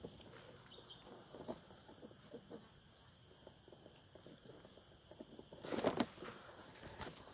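A steady high insect drone with scattered small clicks and rustles, and a louder burst of rustling about six seconds in.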